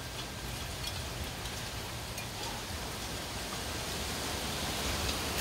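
Steady hurricane rain, an even hiss with scattered drips, growing slightly louder toward the end.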